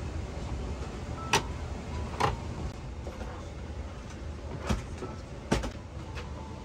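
Airliner seat's folding tray table pulled out of its armrest compartment and unfolded: four sharp clicks and knocks from its hinges and latches, over the steady low hum of the cabin.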